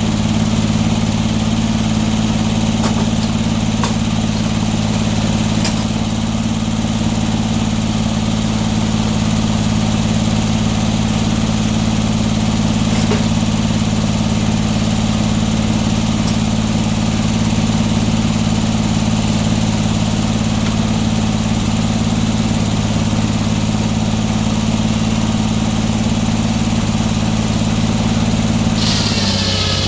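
Sawmill engine running at a steady speed, with a few faint clicks. Near the end the engine note drops and a higher hiss comes in.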